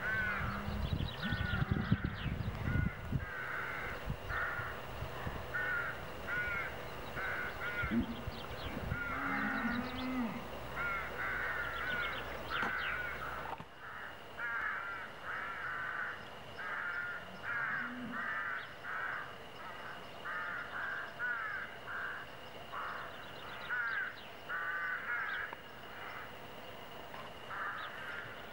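Many crows cawing over and over, harsh calls coming in quick runs, some overlapping.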